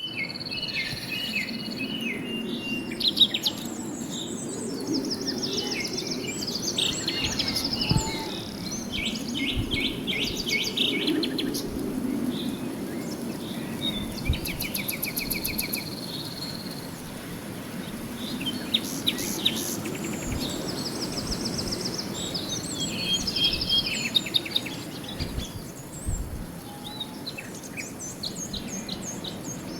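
Forest ambience: several birds chirping and trilling in short repeated phrases throughout, over a steady high insect drone and a low background rumble that swells and fades.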